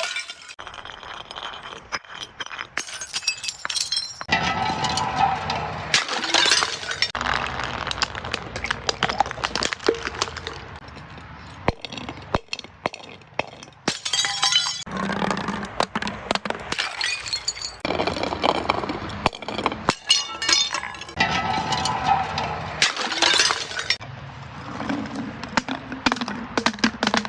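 Glass being crushed and broken: repeated crunching, cracking and clinking of shards, in bouts of a few seconds each with short quieter gaps between.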